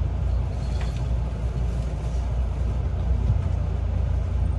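Limited express Shinano electric train running, a steady low rumble with no distinct knocks or changes.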